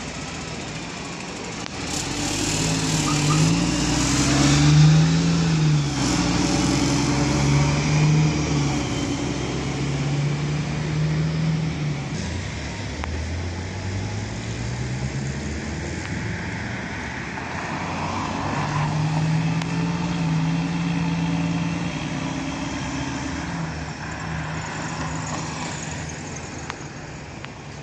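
NefAZ 5299 city bus pulling away from a stop: its engine pitch rises and drops several times as the gearbox shifts up, and the sound fades as the bus drives off.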